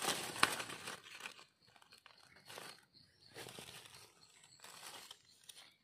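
Dry fallen leaves rustling and crackling in short bursts as they are pushed aside by hand around a mushroom, loudest in the first second, then several softer rustles.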